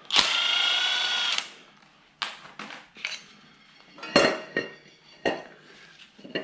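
Power drill running steadily for about a second and a half, driving in a clutch bolt. Then a few sharp metallic clinks and knocks of bolts and tools being handled.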